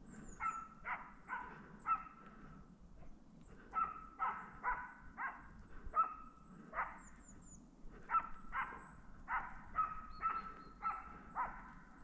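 A Deutscher Wachtelhund (German spaniel) barking repeatedly in runs of several barks, about two a second with short pauses: the dog giving tongue (los) while working game.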